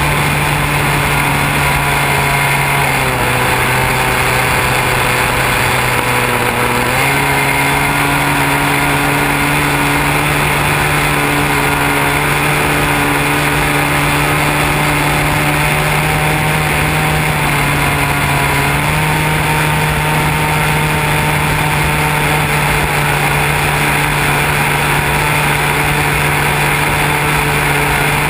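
Radio-controlled model airplane's motor and propeller droning steadily in flight, heard from a camera mounted on the plane, with a constant rush of air. Its pitch steps down about three seconds in and back up about seven seconds in, then dips and recovers again later on.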